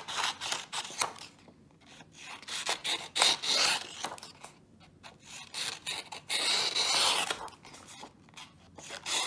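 Scissors cutting long strips of coloured paper: about three long slicing cuts, each a second or more, with short pauses between.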